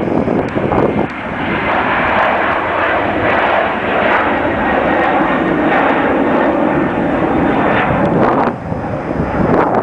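Boeing 767 jet engines running, a loud steady rush with a faint whine that builds about a second in and drops away near the end. Gusts of wind buffet the microphone at the start and again near the end.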